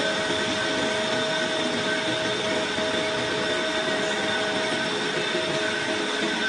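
Large lathe turning a 1.4301 (304) stainless steel pipe, the tool cutting steadily along the bar. A steady machine noise with a few constant high whining tones over it.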